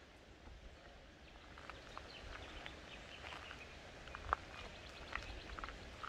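Faint bushland ambience: scattered short chirps and clicks at irregular intervals over a low rumble, with one sharper click about four seconds in.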